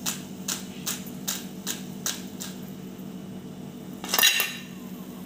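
Fried supulu cakes tipped from a wire spider strainer into a bowl, a short crisp clatter a little after four seconds in. Before it, light regular ticks, about two or three a second, while the strainer is held over the hot oil.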